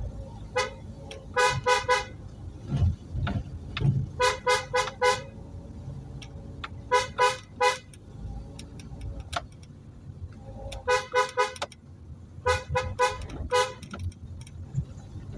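Car horn tooted in five bursts of three or four quick beeps, over the low rumble of the car's engine and tyres on a rough road, heard from inside the cabin. The horn warns of the car's approach on a narrow one-way road where oncoming traffic can't be seen.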